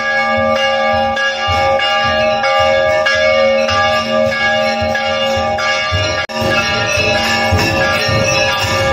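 Temple bells rung over and over, the strikes blending into a continuous ringing with an uneven low beat underneath. It cuts out for an instant about six seconds in.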